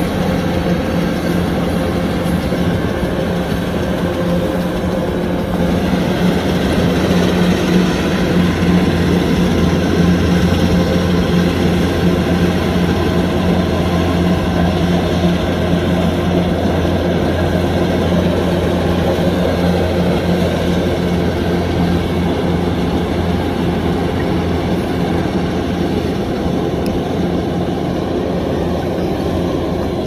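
Kubota DC-105X rice combine harvester running steadily as it cuts: its diesel engine and threshing machinery make one continuous hum whose pitch holds, a little louder about a third of the way in.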